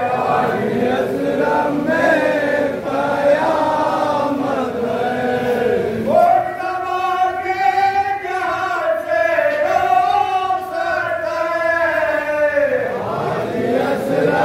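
A group of men chanting a nauha, a Shia lament, in unison, led by voices at a microphone, with long held notes through the middle.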